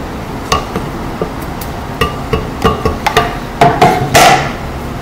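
A wooden cutting board knocking and clattering: about eight sharp knocks, some with a short hollow ring, the loudest near the end as the board is set back down on the wooden table.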